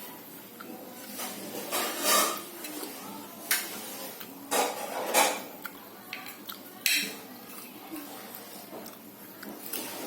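Spoon clinking and scraping against a plate or bowl while eating, a handful of sharp clinks spread irregularly.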